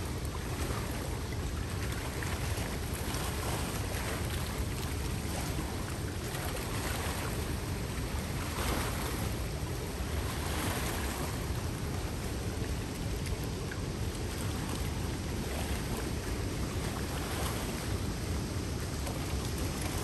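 River waterfall: water rushing steadily over the falls, a constant even rush with a deep low rumble underneath.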